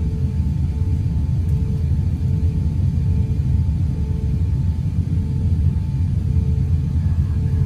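Steady low rumble inside the passenger cabin of an Airbus A350-900 sitting on the runway with its engines running. A faint steady hum and a faint tone pulsing about every two-thirds of a second sit above it.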